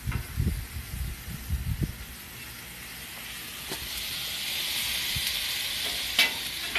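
Sliced ribeye steak sizzling on a flat-top griddle over a gas grill as it is turned with a metal spatula; the sizzle swells from about three seconds in. Wind rumbles on the microphone at first, and the spatula gives a sharp clack on the griddle near the end.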